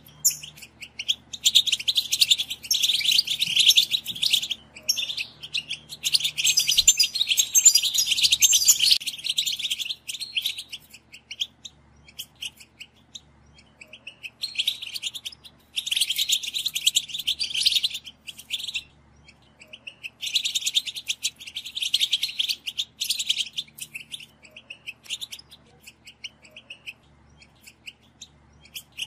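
European goldfinch song: bursts of rapid, high-pitched twittering a few seconds long, separated by short pauses with scattered single chirps between them.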